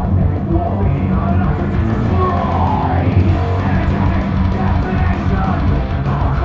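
Loud heavy metal music with shouted vocals, playing steadily.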